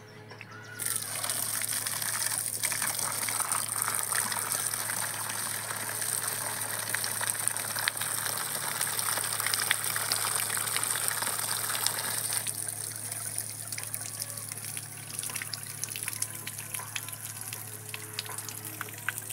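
Water gushing from the open end of a borehole pump's outlet pipe and splashing onto the ground, starting about a second in and a little quieter from about two thirds through: the submersible solar pump is delivering water.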